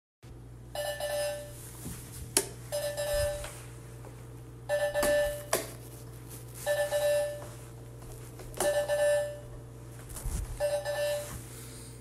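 An electronic alarm sounding a short ringing tone about every two seconds, six times in a row, over a steady low electrical hum, with a couple of sharp clicks.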